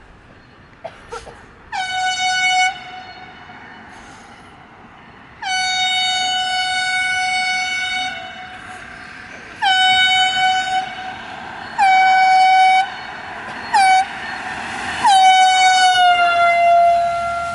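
Single-note air horn on a passing vehicle sounding six blasts of varying length, each starting with a quick drop in pitch. The vehicle's noise rises under the later blasts as it nears, and on the last, longest blast the pitch falls as it goes by: the Doppler shift.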